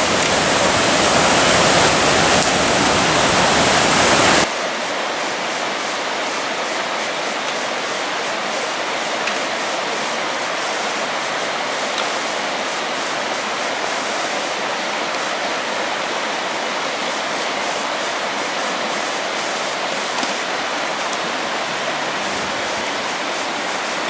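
Rushing creek water, a loud steady rush. About four and a half seconds in it cuts suddenly to a quieter, steady flow of a smaller stream.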